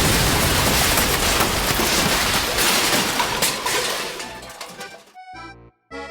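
A sudden loud crash-like burst of noise that dies away over about five seconds; accordion music comes back in near the end.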